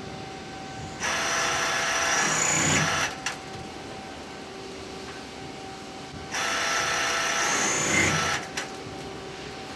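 Murata MD200G turning center's two-spindle live-tool drill head drilling and chamfering holes in a metal flange: two cuts of about two seconds each, the first about a second in and the second about six seconds in, over the machine's steady hum.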